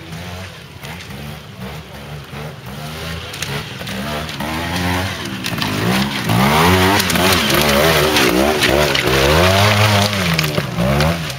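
Trials motorcycle engine revving up and down in short bursts as the bike picks its way up a steep, rocky climb. It grows louder as the bike comes close and is loudest from about six to ten seconds in.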